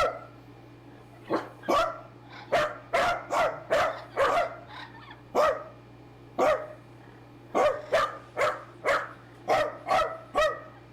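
A dog barking over and over, about twenty short, sharp barks in irregular runs with brief gaps between them.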